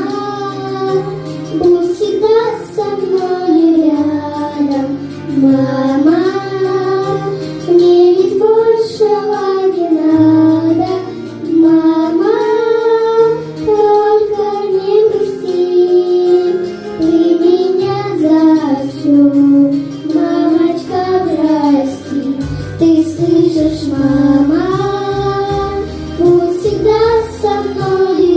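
Girls singing a slow pop song about their mother over an instrumental backing track, the melody held in long sung notes.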